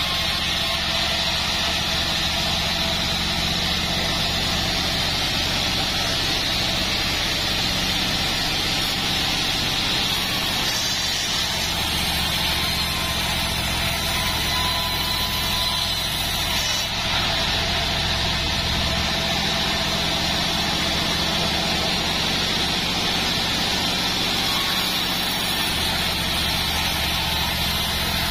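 Vertical bandsaw mill running steadily, its band blade ripping a joar log lengthwise into beams over a constant low machine hum and a steady high whine.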